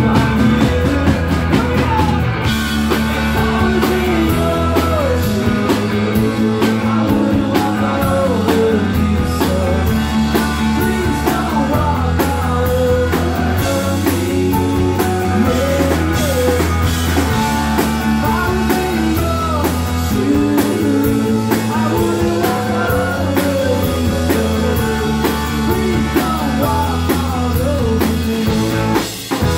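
Live rock band playing loudly: electric guitars, bass and a drum kit, with a wavering melodic line over a steady low bass pattern. The band breaks off for a moment just before the end.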